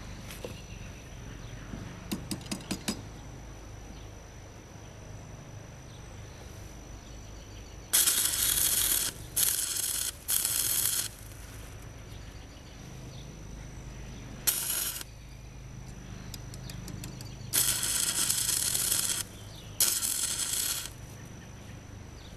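Short bursts of electric welding: a crackling hiss starts and stops abruptly six times as tack welds are laid across a crack in a lawnmower's drive-chain sprocket, which is clamped shut with tongs. A few light metallic clicks come before the first weld.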